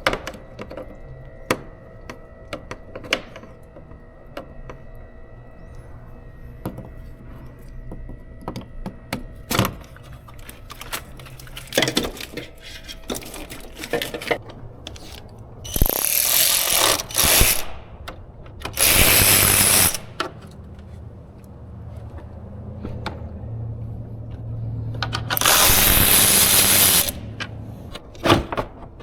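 Workshop tool work on an engine: scattered metal clicks and clinks, then three loud bursts of a power tool running for a second or two each in the second half.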